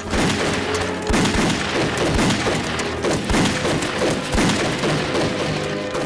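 A gunfight: repeated gunshots at irregular intervals, some close together, over dramatic background music.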